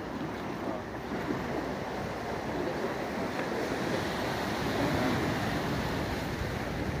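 Steady outdoor noise of wind buffeting the microphone, mixed with the wash of the sea against the pier.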